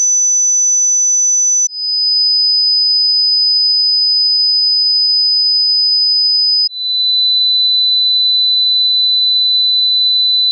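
Hearing-test tone: a single high-pitched, steady electronic pure tone. It steps down to a lower pitch twice, about two seconds in and about seven seconds in, with a brief dip at each change.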